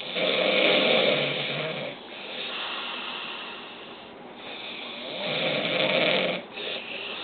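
A man snoring: two long, loud snores about five seconds apart, with a quieter breath between them.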